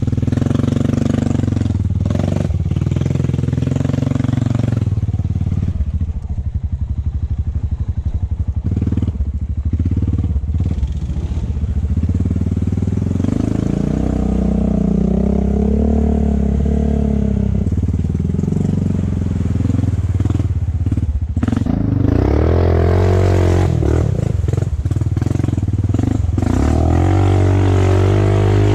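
Honda ATV's single-cylinder four-stroke engine running as it is ridden, its pitch rising and falling with the throttle. For a few seconds about a quarter of the way in it drops to a low, pulsing idle, then picks up again.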